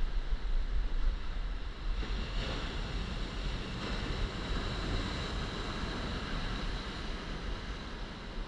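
Ocean surf washing steadily, with wind buffeting the microphone as a low rumble.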